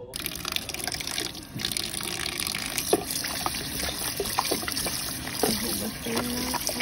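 Tap water running into a plastic basin while a hand rubs and turns chunks of raw meat under the stream, with frequent small splashes and wet slaps.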